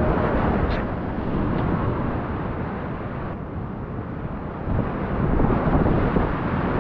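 Whitewater rapids rushing steadily around a kayak, heard close up from the boat with a heavy low rumble. The rush swells a little louder about five seconds in.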